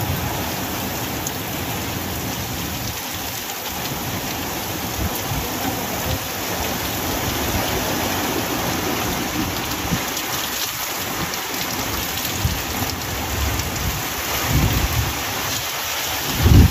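Heavy rain pouring steadily onto a muddy, waterlogged street. Near the end a louder low rumble swells as a small truck drives past through the water.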